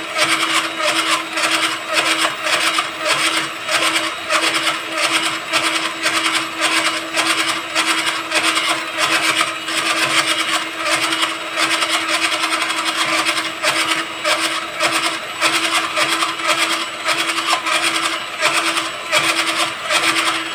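Electric hand mixer running steadily, its beaters whipping softened butter in a plastic bowl, the sound swelling and falling in a regular rhythm.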